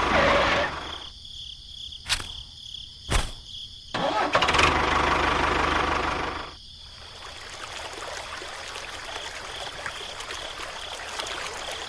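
A small motor running in starts and stops. It cuts out about a second in, two sharp clicks come in the pause, it runs again for about two and a half seconds from around four seconds in, then lower steady noise follows.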